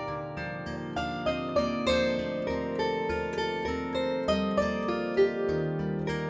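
48-string cross-strung gusli played by hand: several plucked notes a second ringing on and overlapping one another, with a stronger accented note about five seconds in.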